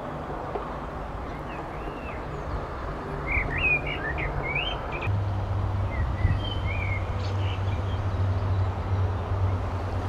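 Small birds chirping in short bursts over a steady low drone of distant machinery, likely a neighbouring plot holder's engine, which drops in pitch and gets louder about halfway through.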